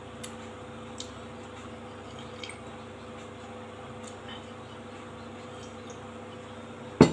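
A person drinking from a plastic tumbler, faint liquid and swallowing sounds with a few small ticks, then a sharp knock near the end as the tumbler is set down on a wooden table.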